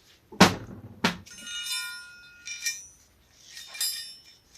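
Steel cam chain clinking against a motorcycle crankshaft as it is looped over it. There are two sharp metal knocks early, then ringing clinks of chain links and metal, with a few more clinks near the end.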